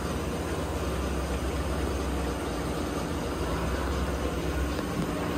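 Steady low machinery hum with an even background noise and a faint constant tone; the low hum weakens near the end.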